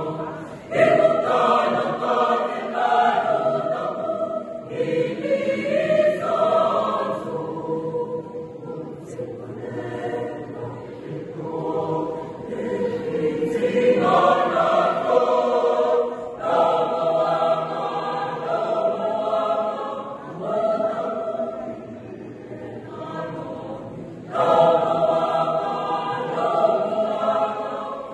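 Large mixed choir of young men and women singing together, with louder passages about a second in, around the middle, and a few seconds before the end.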